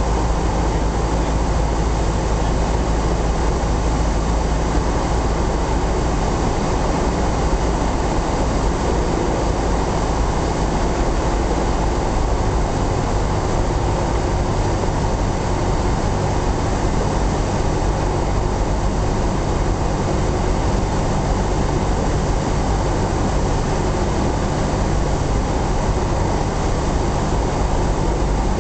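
Cessna 172SP's four-cylinder Lycoming engine and propeller running steadily on final approach, heard from inside the cockpit as a constant low drone mixed with rushing airflow noise.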